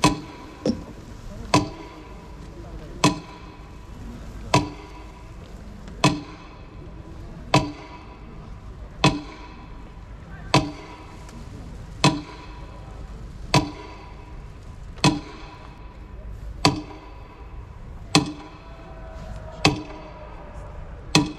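Slow metronome beating, one sharp tick about every second and a half with a short ring after each: the blockade metronome sounded for a minute of silence in memory of the siege of Leningrad.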